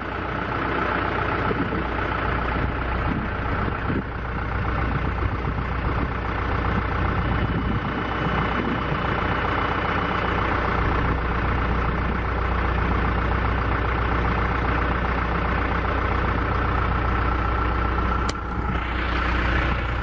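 Heavy diesel engine running steadily at low revs, an even drone with no change in pace, as the truck eases the cabin trailer into position. A single sharp click sounds near the end.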